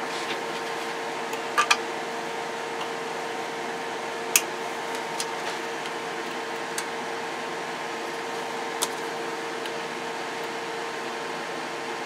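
Steady fan-like hum of running bench test equipment, with a constant low tone, and a few sharp clicks of knobs and switches being worked: two close together about one and a half seconds in, the loudest about four seconds in.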